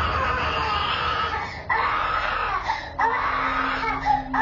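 Toddler crying in three long wails with short breaks, heard through a baby monitor's microphone over steady low noise; a steady low hum joins about three seconds in.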